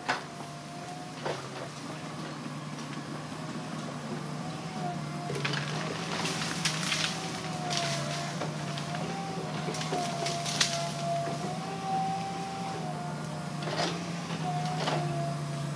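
Heavy earthmoving machinery working: a diesel engine runs steadily under a wavering whine, with several sharp metallic clanks.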